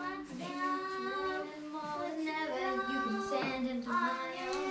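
A child singing a tune unaccompanied, in long held notes.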